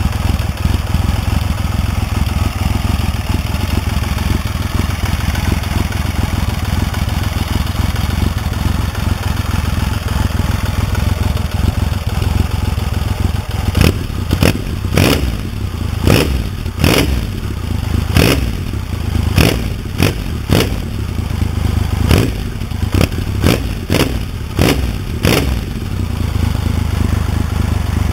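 Triumph Legend TT's three-cylinder engine idling steadily through its exhaust. About halfway through, it is revved in a string of about a dozen short, sharp throttle blips, each falling back to idle.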